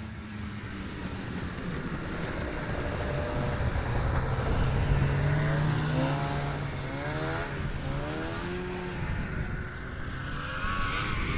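Snowmobile engine running, its pitch rising and falling repeatedly as the throttle is opened and eased. It grows louder toward the middle, then drops back a little.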